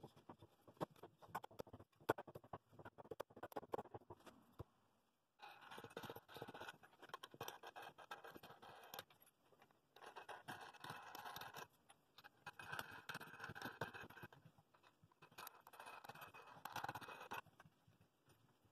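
Faint metallic scraping and rattling of nuts being spun down the threaded steel rods of a bowl glue-up press, in four spells of a few seconds each. Before them comes a run of small clicks and taps as the wooden top plate is fitted over the rods.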